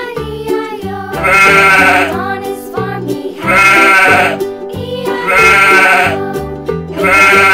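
Sheep bleating, four calls about two seconds apart, over cheerful children's background music.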